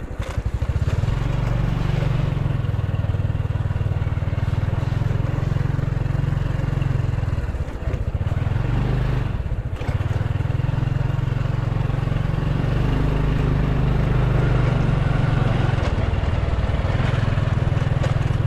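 Motorcycle engine running steadily while riding along, easing off briefly twice, about 8 and 10 seconds in.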